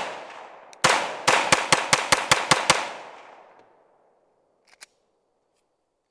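9mm semi-automatic pistol fired rapidly, about ten shots in two seconds starting about a second in, with an echo that fades away. The heat-damaged gun, its polymer grip melted, still fires. A couple of faint clicks follow near the end.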